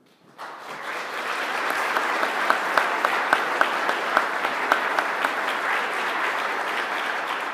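Audience applauding, starting about half a second in and holding steady, with a few sharp nearby claps standing out through the middle.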